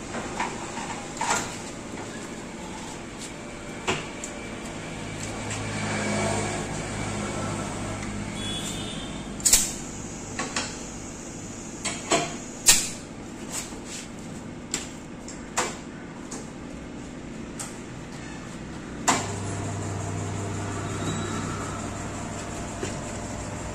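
Motorcycle tyre being worked on a tyre-changer machine: repeated sharp metal clanks and clicks from tyre levers and tools. Underneath, a low motor hum comes in for a few seconds near the start and again for the last few seconds.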